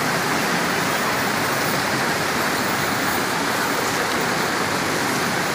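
Steady rushing of a shallow, fast-flowing river running over rocks in small rapids.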